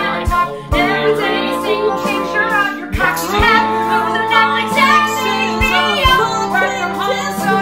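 A man and a woman singing a comic pop duet, their two vocal lines overlapping over instrumental backing with held low chords.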